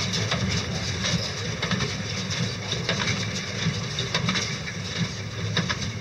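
Small square hay baler running as it picks up hay, its mounted engine running steadily under repeated sharp clanks and knocks from the baling mechanism.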